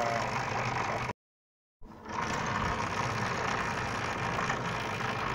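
Steady running of a small pickup truck's engine. It cuts out about a second in and fades back in a moment later.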